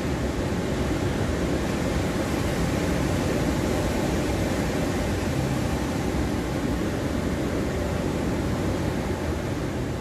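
Ocean surf breaking on a sandy beach ahead of a typhoon: a steady, unbroken rush of waves, heaviest in the low range, with no single breaker standing out.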